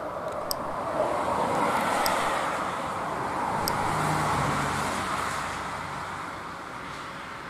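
A vehicle passing by: a steady rushing rumble that swells about a second in and again around four seconds, then fades away.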